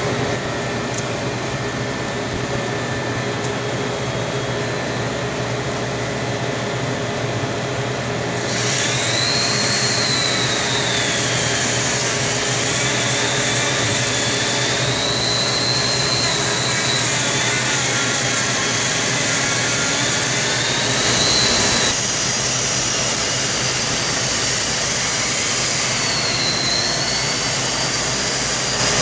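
Handheld electric die grinder running while cutting ice, a steady high-speed motor noise; about eight seconds in a high whine joins and wavers up and down in pitch.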